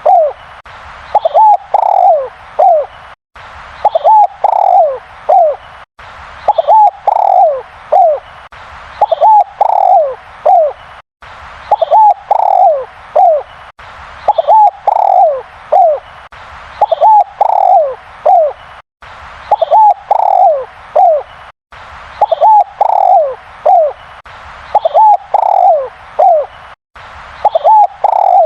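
Spotted dove (derkuku) cooing loudly in a repeated phrase of three or four coos, the last one falling in pitch. The phrase comes round about every two and a half seconds.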